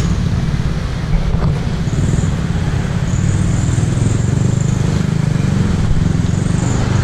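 A motor vehicle's engine running steadily with a low rumble, over a faint high hiss that comes and goes.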